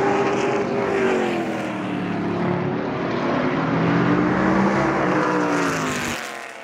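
Race car engines running hard on the circuit, the engine note falling, rising and falling again. The sound drops away abruptly about six seconds in.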